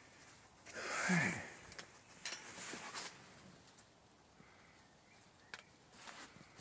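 A man's breathy exhale with a falling pitch, like a sigh, about a second in, followed by faint rustling and a few scattered clicks of handling.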